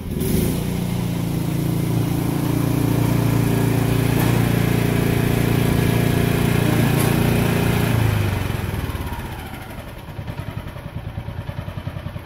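Honda Harmony 1011 riding mower's engine running steadily and loud. About eight seconds in it drops away to a quieter, even pulsing of about five beats a second.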